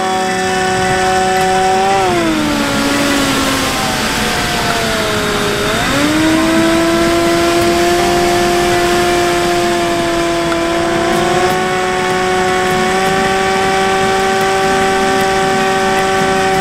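Electric motor and propeller of a Bixler 3 RC plane, heard from an onboard camera in flight, with wind rushing past the microphone. The whine drops about two seconds in as the throttle comes back, sags lower, then climbs back up about six seconds in and holds steady.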